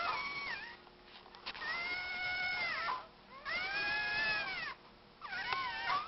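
Siamese cat meowing: a run of four long, drawn-out yowling meows, each about a second or more, the third rising and falling in pitch.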